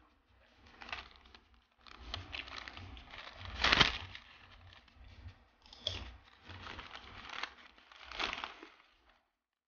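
Paper napkin crinkling and rustling as it is handled, in irregular bursts with the loudest about four seconds in; the sound cuts off to silence just before the end.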